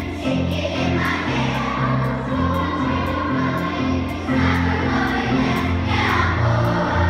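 Large children's choir singing in unison with instrumental accompaniment, over a steady percussion beat of about two strokes a second.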